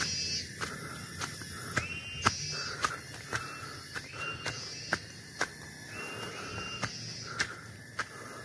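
Hilltop forest ambience: insects keep up a steady high buzz while a bird repeats a short whistle that rises and then holds, every second or two. Sharp clicks come at uneven intervals.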